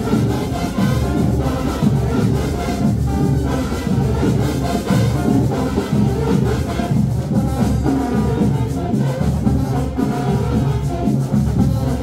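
School marching band playing, with brass over drums.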